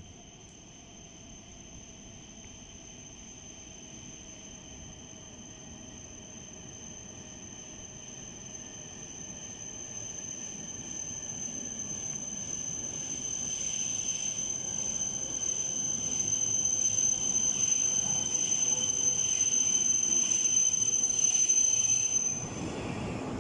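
E6+E5 series Shinkansen train pulling into the station and slowing down, its high steady electric whine with a weaker lower tone growing louder as it approaches, while a lower tone slowly falls in pitch. The whine stops abruptly about 22 seconds in as the front of the train passes.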